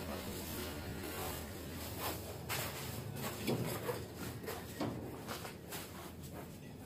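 Faint indoor room tone with a steady low hum, broken by soft, irregular footsteps and knocks from a handheld camera being carried.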